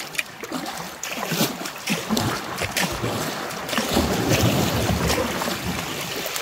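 Kayak being paddled up over a beaver dam: irregular paddle splashes against water rushing over the dam, with a low rumble swelling about halfway through.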